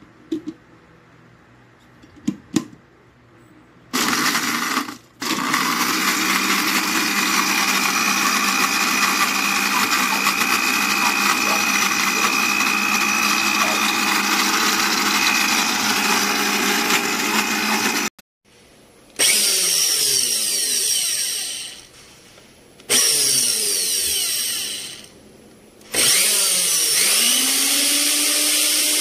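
A few clicks, then a CASSIUS 300W blender's motor runs steadily, blending fruit pulp in its glass jug. Later it is switched off and on several times: its whine falls as the motor coasts down and rises as it spins back up, and by the end the motor base runs with no jug fitted.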